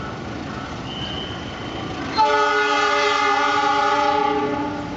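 A train horn sounds one long, steady chord blast that starts about two seconds in and lasts about two and a half seconds, over a low steady rumble.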